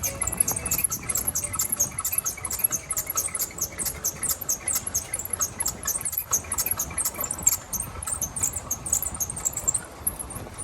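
Bicycle squeaking in a fast, even rhythm, about four to five high squeaks a second.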